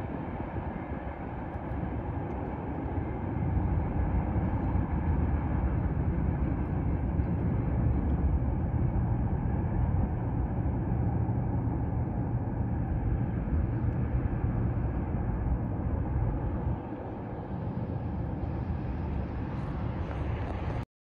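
Low, steady rumble of a distant train on the line. It swells a few seconds in and drops off about four seconds before the end, where a car passes on the road. The sound cuts off suddenly at the very end.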